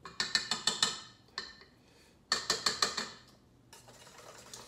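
Metal knocking rapidly against the stainless steel bowl of a stand mixer, in two clattering bursts of about a second each: one right at the start and one a little past two seconds in.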